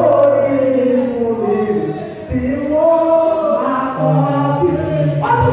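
A man singing or chanting loudly into a microphone, holding long, drawn-out notes that slide slowly in pitch, heard through the hall's PA.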